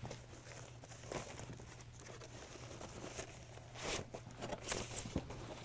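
Faint rustling and crinkling of a thin plastic wrapping sleeve being slid off an electronics console, with a few louder crinkles about four and five seconds in.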